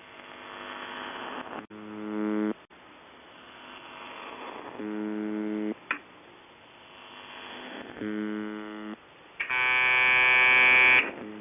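An electric buzzer sounding in short buzzes of about a second each, four in all, with a hiss swelling up between them. The last buzz is longer, louder and higher.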